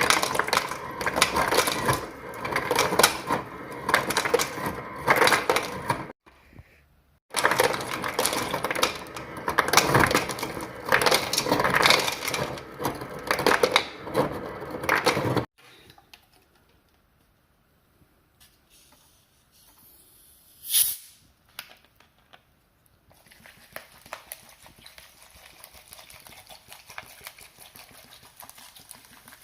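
Refrigerator ice dispenser dropping ice cubes into a glass: a dense clatter of cubes that breaks off for about a second some six seconds in, runs on again and stops about halfway through. Later comes a single knock, then a faint steady crackle.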